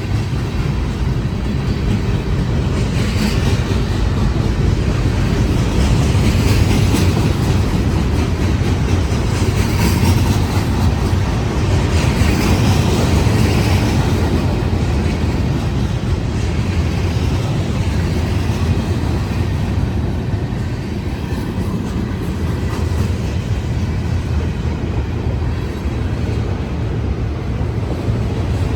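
Union Pacific manifest freight train rolling past, its cars' wheels on the rails making a steady low rumble.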